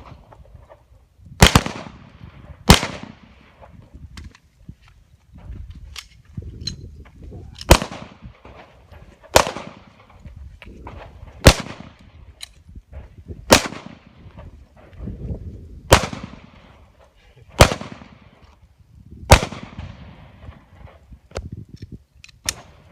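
Handgun shots fired one at a time at uneven intervals, about ten loud shots each with a brief echo, plus a few fainter ones.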